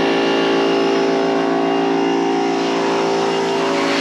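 An engine running steadily at a constant speed, its pitch unchanging, loud and close.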